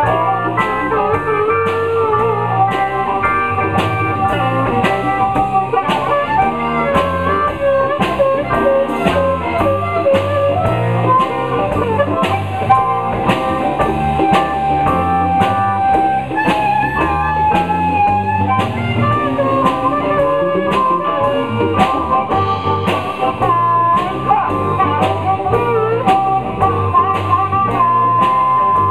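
Live blues band playing a song in G: drum kit keeping a steady beat under guitar and keyboard, with a lead instrument playing held, wavering melody notes over the top.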